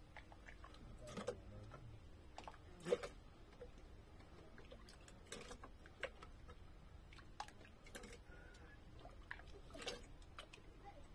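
Faint, scattered light clicks and taps, with one sharper knock about three seconds in.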